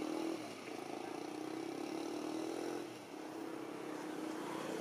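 A motor vehicle's engine humming in the background. Its pitch climbs slowly and falls back twice, about half a second in and again about three seconds in.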